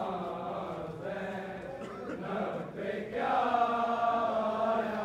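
Male voices chanting a Shia mourning lament (noha), the chant swelling into one long held note from about three seconds in.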